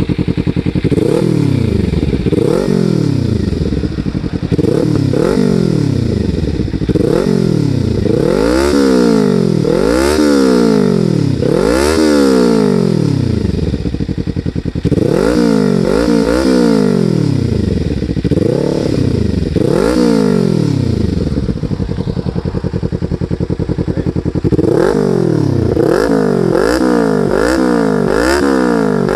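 2015 Kawasaki Ninja 300's parallel-twin engine through a slip-on aftermarket muffler, revved at standstill: throttle blips that rise and fall in pitch every second or two, with a run of quicker blips near the end.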